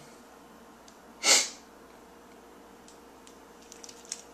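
A person's single short, breathy nasal burst about a second in, a stifled sneeze or snort-like sharp exhale, over quiet room tone. A few faint clicks follow near the end.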